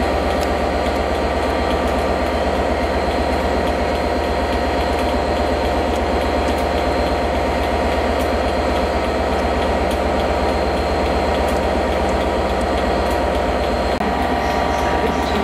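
Diesel locomotives' EMD 710 two-stroke V12 engines running at idle: a steady, deep, even drone with a constant hum that does not change.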